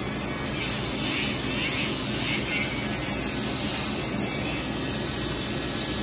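Handheld rotary dog nail grinder running with a steady hum, with a few short bursts of higher-pitched grinding in the first half as it is pressed against the dog's nails.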